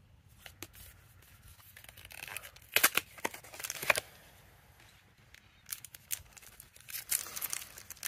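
Foil-laminated Pokémon booster pack wrapper crinkling in the hands and tearing open in short crackly rips, loudest around three to four seconds in and again near the end.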